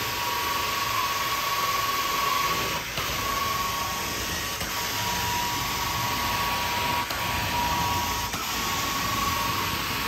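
Vacuum cleaner running steadily as its wand floor head is pushed and pulled over carpet: a constant rushing noise with a high whine that breaks briefly about three seconds in and again near seven and eight seconds.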